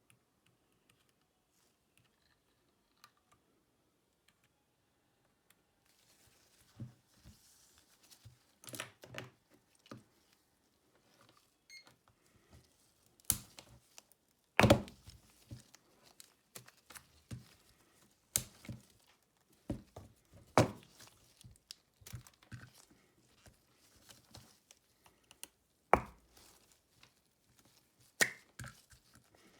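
A smartphone and small repair tools handled on a work mat: irregular clicks, light taps and a few sharper knocks, with faint scraping or crinkling, starting several seconds in.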